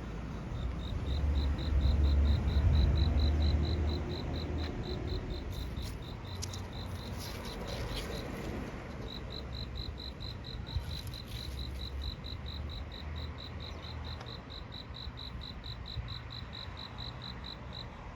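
An insect chirping in an even, high-pitched pulse, about four or five chirps a second, with a short pause near the middle. Under it runs a low rumble that is loudest in the first few seconds, with a few faint clicks in the middle.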